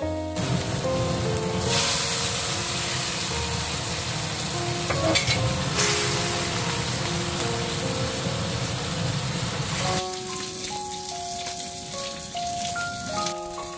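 Hot bean-paste sauce sizzling and bubbling in a wok as pieces of fried hairtail are slid into it, over background music. The sizzling stops suddenly about ten seconds in, leaving the music.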